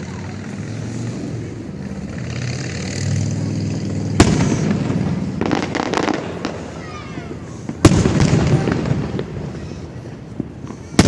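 Aerial fireworks display: a low rumble of shells, with two loud sharp bangs, about four seconds in and just before eight seconds, and a burst of crackling between them.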